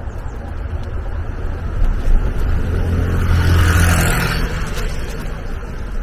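A car driving past, its engine hum and tyre noise swelling to a peak about three and a half seconds in, then fading away.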